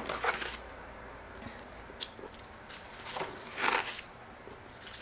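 Paper pages of a discbound planner being turned by hand: two brief rustling swishes, one right at the start and a louder one about three and a half seconds in, with a few light paper ticks between.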